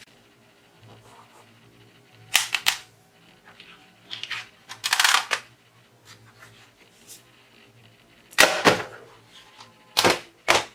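Plastic toy gun clacking. There are sharp snaps in pairs a little over two seconds in, a longer rattling burst about five seconds in, another pair past eight seconds, and two more near the end.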